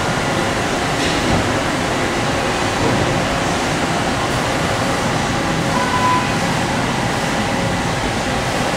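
Komo VMC 40/240 CNC vertical machining center running with flood coolant spraying inside its enclosure: a steady mechanical and spraying noise with a faint whine.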